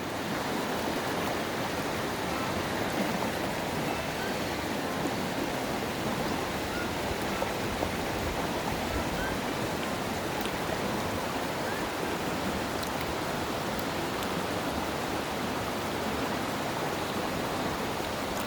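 River water rushing steadily past, a constant wash of flowing water.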